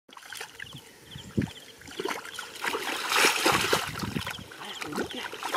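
Feet wading through shallow muddy water, sloshing and splashing, loudest about three seconds in.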